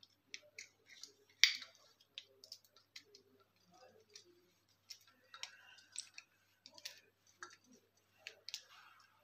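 Small screwdriver tightening the terminal screws of a plastic two-way switch: scattered small clicks and short scrapes of metal on the screws and plastic housing, the sharpest click about one and a half seconds in.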